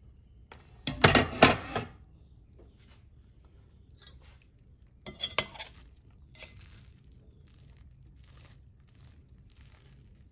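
Metal spoon clattering against a stainless steel pot and scraping through freshly cooked white rice as it is fluffed loose. Two louder clatters, about a second in and about five seconds in, are followed by a series of softer scraping strokes.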